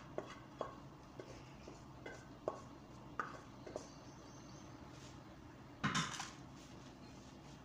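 A spoon scraping and tapping against a frying pan in a series of light clinks as food is scraped out into a bowl. About six seconds in comes a louder clatter as the pan is set down on the cooktop.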